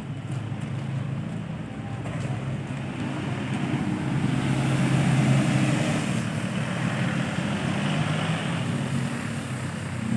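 A motor vehicle's engine running with a steady hum, growing louder to a peak about halfway through and then easing off somewhat, as a vehicle passing close by.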